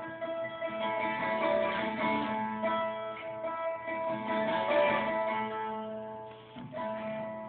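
Acoustic guitar playing an instrumental passage between sung verses, its chords strummed and left ringing, with a new chord struck near the end.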